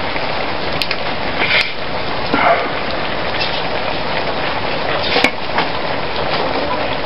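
Vegetables and sauce sizzling steadily in a steel wok over a wood fire, with a few sharp clicks.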